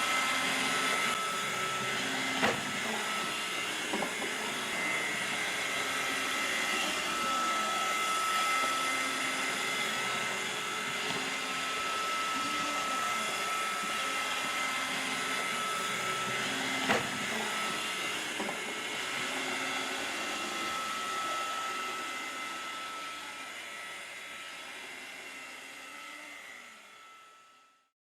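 Robot vacuum cleaner running: a steady whir with a thin high tone and a wavering low hum. Two sharp knocks come through, one a couple of seconds in and one just past the middle. The sound fades out gradually over the last several seconds.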